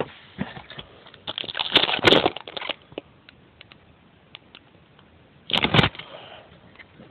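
Plastic-foil wrappers of 2010 Topps baseball card packs crinkling and tearing in two bursts, a longer one about a second in and a shorter one later, with light clicks of cards being handled between.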